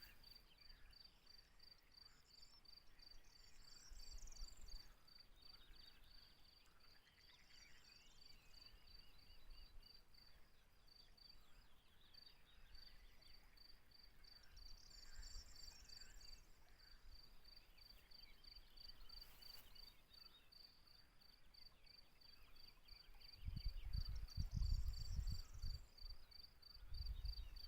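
Faint outdoor chorus: a cricket chirping in a steady, evenly spaced high pulse, with a few short bird calls scattered through it. Low rumbling of wind on the microphone near the end.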